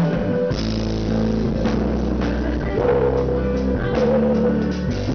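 Live rock band playing: drum kit hits over electric guitar and a held low bass line.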